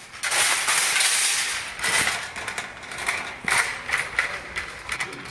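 Metal shopping cart pulled out of a nested row of carts and rolled away: a loud, clattering rattle of the wire basket and casters with many sharp clicks, starting a moment in.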